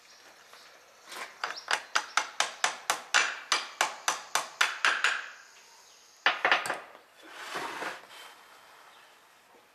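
A rapid even run of about twenty sharp clicks, about five a second, from the metal parts of an Allis-Chalmers power director clutch being worked by hand. A couple of louder knocks follow, then a brief rustle.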